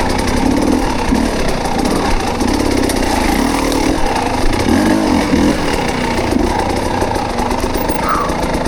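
Dirt bike engine running steadily at low speed.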